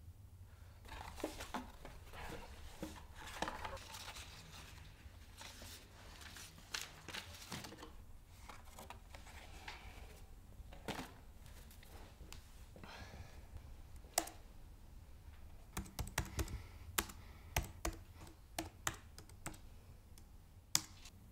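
Papers and a card folder rustling as they are handled, then a run of keystrokes on a laptop keyboard in the last few seconds, over a faint low room hum.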